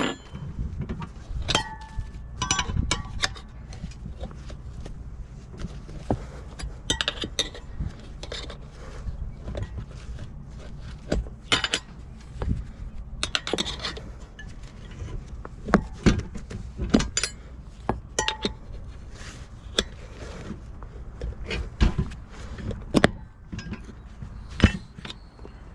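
Steel tire spoons clinking and scraping against a dirt bike wheel rim as the tire bead is levered on, with irregular sharp metallic clinks and knocks, a few ringing briefly.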